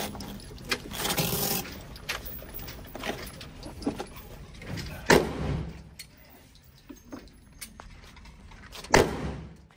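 Indoor shooting range: light metallic clicks and clinks of guns and magazines being handled, with two loud, echoing gunshots from neighbouring lanes, about five and nine seconds in.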